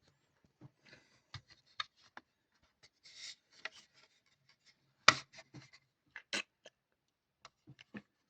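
Handling noises from a BRK 83R smoke alarm being picked up and turned over: irregular clicks, light knocks and rubbing, with a short scratchy rustle about three seconds in and a sharper knock about five seconds in.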